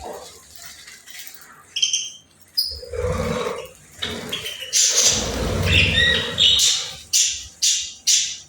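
Pet budgerigars chirping and squawking, with short high chirps. There are a few heavier noisy bursts, and near the end a regular run of short, sharp calls, about two a second.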